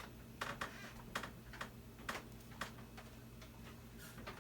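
Light, irregular clicks and taps, roughly two a second, over a steady low hum.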